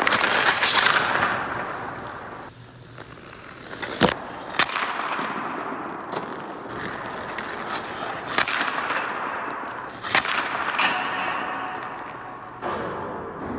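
Ice hockey skates scraping and carving across rink ice, with several sharp cracks of stick on puck and puck striking the boards, ringing in an empty indoor arena.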